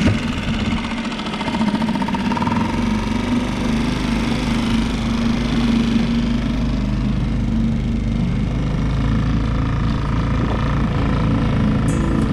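Mercury 3.5 hp outboard motor running steadily as it drives a small inflatable boat. About three seconds in, a deeper low rumble joins the engine note.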